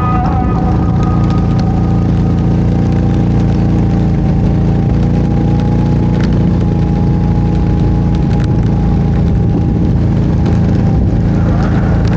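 Can-Am ATV engine running steadily at an even pitch, with a strong low rumble and a couple of faint sharp clicks in the middle.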